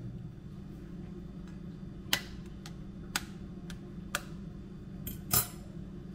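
A series of sharp clicks or taps, irregularly spaced, the loudest near the end, over a steady low hum.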